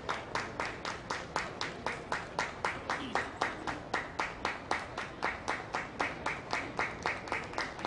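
Hands clapping in a steady, quick rhythm of about four claps a second.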